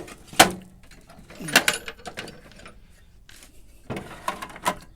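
Small metal lock parts and picking tools being handled: a few separate sharp clicks and clinks, the last two with a short metallic ring.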